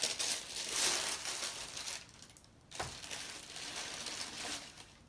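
Paper packaging crinkling in two stretches as a pair of sneakers is unwrapped, with a light knock about three seconds in.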